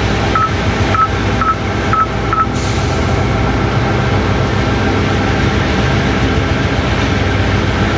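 Diesel locomotive engine running steadily, heard from inside the cab. Five short high beeps sound about two a second in the first couple of seconds, followed by a brief hiss.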